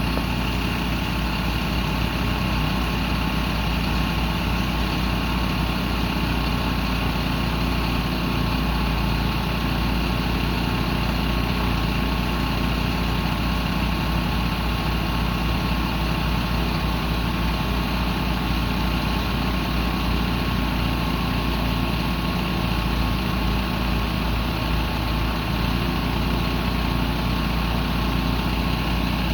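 Heavy diesel engine of construction equipment at a water main repair, idling steadily as a constant low drone with a faint steady whine above it.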